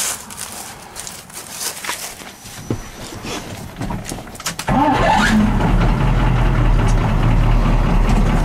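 1983 Chevy K20's 6.2-litre V8 diesel starting cold after its glow plugs were heated by counting out the time by hand, because the glow plug switch is faulty. Faint clicks and knocks for the first four or five seconds, then the engine catches abruptly, revs briefly and settles into a steady idle.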